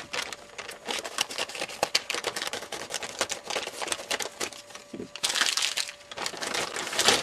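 Plastic mailing bag crinkling and rustling as hands pull it open, with a louder stretch of crinkling about five seconds in.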